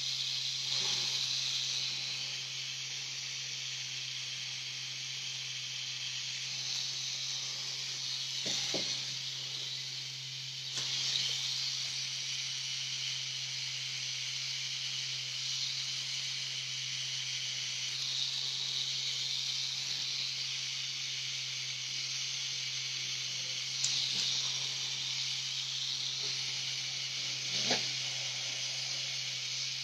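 Pen-style rotary tattoo machine running steadily while tattooing, a low hum under a hiss that swells and eases every several seconds, with a couple of brief knocks.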